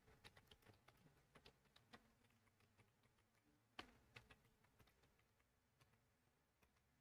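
Faint typing on a computer keyboard: a quick run of soft key clicks in the first two seconds, then scattered single clicks, the strongest about four seconds in.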